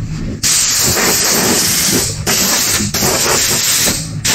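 Compressed-air blow gun hissing in three blasts with short gaps, blowing dust off a car's fiberglass hood.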